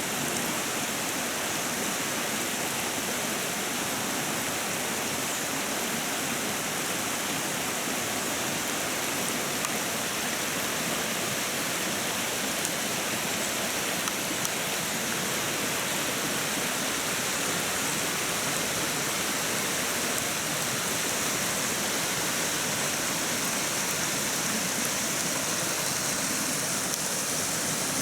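Steady rain falling onto a flowing river: an even hiss of rain on the water mixed with the river's rush.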